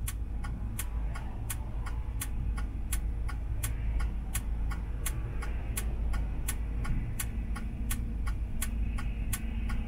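Car turn-signal indicator ticking steadily, about three clicks a second, over the low hum of the car inside the cabin.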